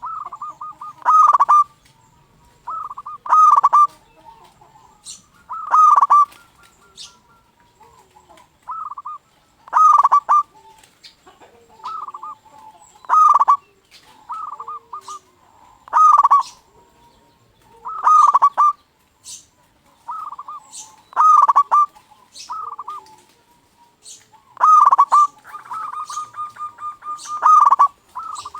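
Local zebra dove (perkutut) cooing, one loud phrase about every two to three seconds. Near the end the notes come in a quicker, stuttering run.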